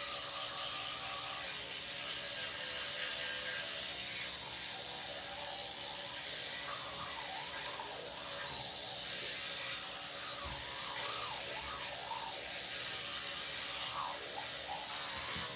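Electric toothbrush buzzing steadily while brushing teeth, the head running against the teeth inside the mouth.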